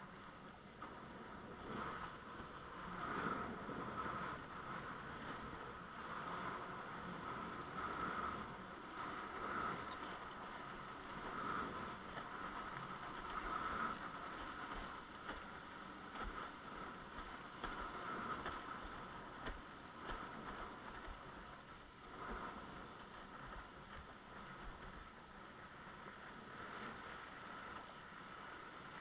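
Windsurf board sailing over water: a steady rush of water and wind that swells and eases every couple of seconds, with a steady high hum running through it.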